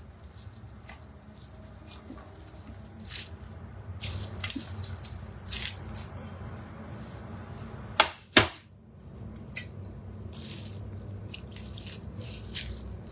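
Rustling and crackling of handfuls of wet leafy greens being dropped and pressed into a Thermomix's steel bowl, over a low steady hum. Two sharp knocks about eight seconds in, a fraction of a second apart, are the loudest sounds, with a lighter knock a second later.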